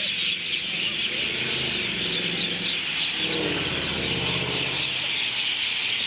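A large flock of common mynas (Indian mynas) at their dusk roost, calling all at once: a dense, loud din of overlapping shrill calls and chatter. A low engine hum from a passing vehicle swells and fades in the middle.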